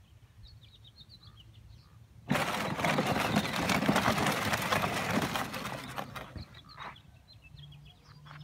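Battery-powered kids' ride-on ATV driving over sandy dirt: its electric drive motor and gearbox start up loudly a couple of seconds in, run for about four seconds, then fade and stop. Small birds chirp faintly in the quiet before and after.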